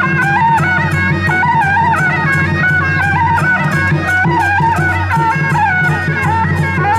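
Traditional temple procession music: a shrill reed wind instrument plays a stepped, ornamented melody over drums, with regular percussion strikes a few times a second.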